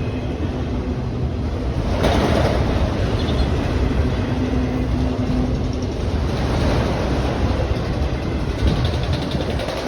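Freight train of autorack cars rolling past at speed: a steady loud rumble of steel wheels on the rails, with a louder knock about two seconds in.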